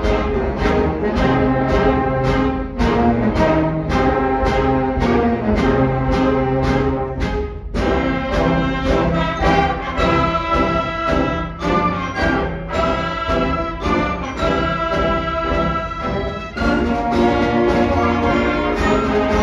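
Concert band of woodwinds and brass playing: short, detached chords on a steady beat for about the first eight seconds, then held, brass-heavy chords.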